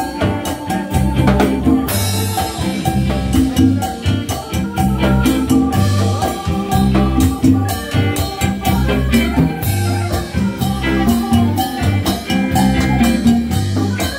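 Live Latin rock band playing an instrumental passage, with drum kit and hand percussion keeping a busy beat over a steady bass line and sustained chords.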